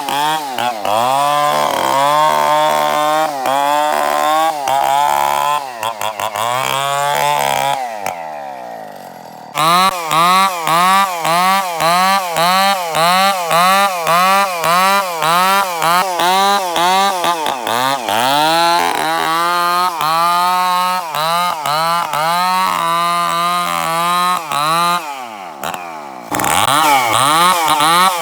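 Chainsaw cutting bayur timber, its engine pitch repeatedly sagging under load and rising again, about once a second. Twice the engine drops back toward idle, about a third of the way in and again near the end, then revs up again.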